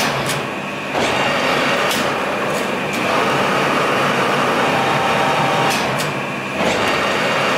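Colchester Master 2500 lathe running under power while a half-inch UNC tap is fed into a part spinning in the chuck, a steady mechanical running noise that rises and falls in loudness a few times. Several sharp clicks come through it.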